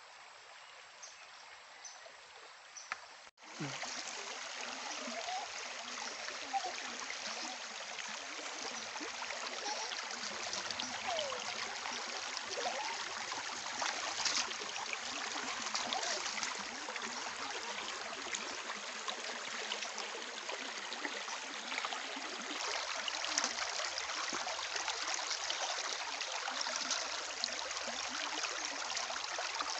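Shallow stream running over stones, with splashing and trickling as a plucked chicken is rinsed by hand in the current. It comes in suddenly about three seconds in, after a short quiet stretch.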